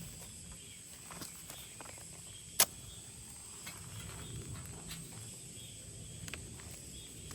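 Insects chirping steadily at a high pitch, with small handling clicks and one sharp knock about two and a half seconds in.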